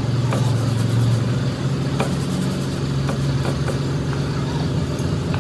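A motor running steadily with a low hum, with a few short, light knocks and clicks over it.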